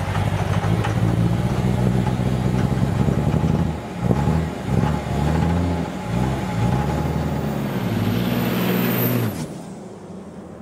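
A vehicle engine running and revving, its pitch rising and falling a few times as it pulls away. The engine drops away about nine seconds in.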